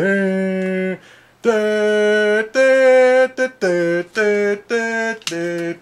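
A man singing unaccompanied, a short melody of long held notes about a second each, with a brief pause about a second in.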